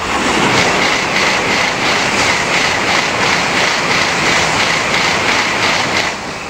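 N700-series Shinkansen bullet train passing at high speed, up to 300 km/h: a loud rushing roar that starts abruptly, with an even pulsing a few times a second as the cars go by. It cuts off sharply about six seconds in as the tail car clears.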